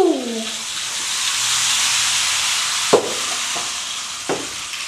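Rain stick pouring its rain-like hiss, swelling for about two seconds and then slowly dying away, used as a rain sound effect. A falling vocal glide fades out just at the start, and two short sharp sounds come about three and four seconds in.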